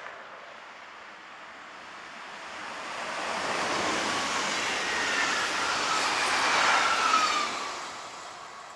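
Two coupled SNCF double-deck electric multiple units, a Z 23500 and a Z 24500 TER 2N, passing by. The rush of the train builds over a few seconds and peaks about seven seconds in, with a faint whine that falls in pitch as it goes by, then fades quickly.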